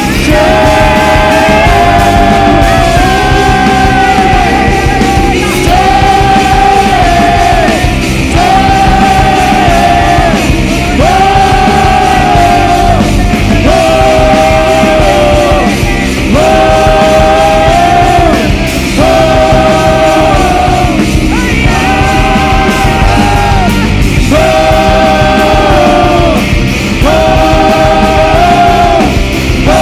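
Worship band playing loud rock-style music: a held melody line repeats in phrases of about two seconds over a full band.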